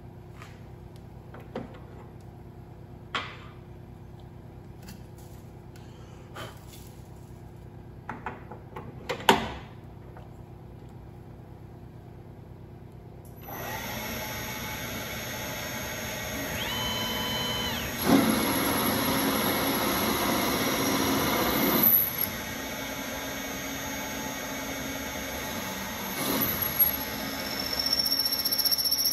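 A few clicks and knocks of metal being handled at a lathe tool post. About halfway through, the converted Shopmaster Mill Turn CNC lathe starts up and keeps running with a steady high whine. It grows louder and rougher for a few seconds, as when the tool is turning the part.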